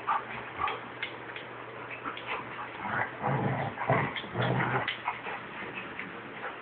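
A Chihuahua and a big black dog play-fighting, with short dog vocalisations and scuffling sounds. The dog noises come thickest and loudest between about three and five seconds in.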